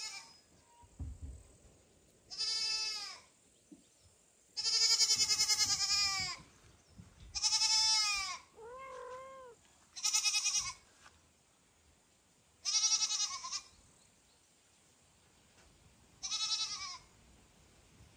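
A kitten crying out in loud, high-pitched meows, about six calls a couple of seconds apart, one of them drawn out longer. One softer, lower meow comes in between.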